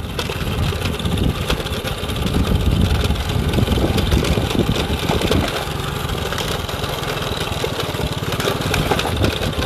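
Small engine of a handlebar-steered vehicle running under way along a rough dirt track. It is a little louder for a few seconds in the middle, with scattered knocks and rattles from the bumpy ride.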